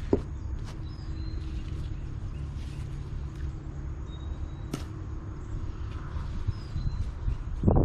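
Outdoor garden background: a steady low hum and rumble, with a few faint short bird chirps and a couple of sharp clicks from handling.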